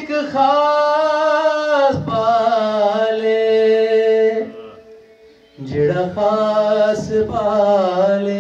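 A man singing a devotional qaseeda solo into a microphone, in long, ornamented held notes whose pitch bends and wavers. The phrases break briefly about two seconds in, and there is a longer pause just after five seconds.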